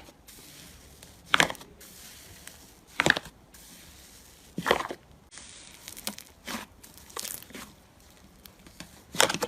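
Slime being squeezed and worked by hand, giving short sharp pops and squelches, about one every second and a half at first and then smaller, closer-spaced ones.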